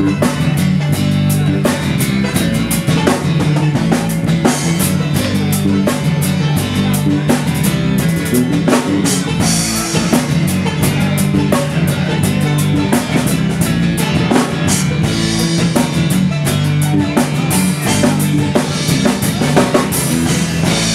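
Live band playing an instrumental passage: a drum kit keeping a steady beat under strummed acoustic guitar and other guitars.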